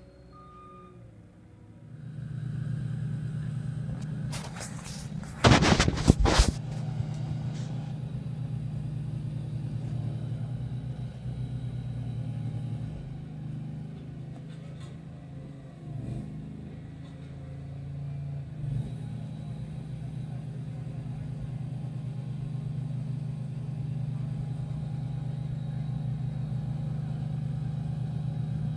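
Small ride-on double-drum asphalt roller running steadily as it compacts a fresh asphalt patch. Its engine sound comes in about two seconds in, and a few seconds later there is a short cluster of loud knocks.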